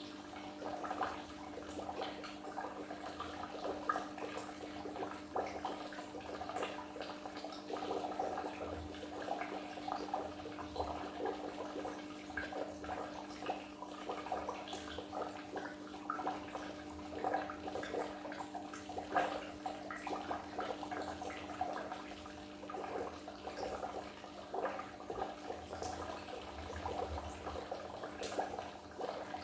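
Goldfish aquarium water bubbling and splashing continuously, with a steady low hum underneath.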